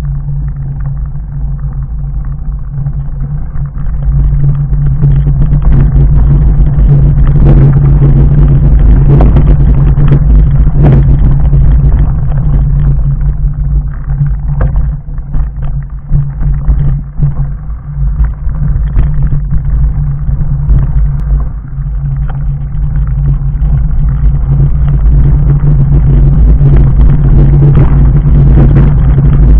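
Continuous rumble and rattle of a fat bike on 4-inch Schwalbe Jumbo Jim tyres rolling down a loose gravel and stone track, with frequent sharp knocks as the tyres strike rocks. It is rougher and less even through the middle, over a stretch of rock slabs.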